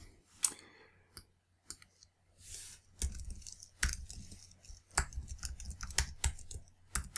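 Computer keyboard and mouse clicking. A few scattered clicks come first, then from about three seconds in a quick run of key presses as a password is typed.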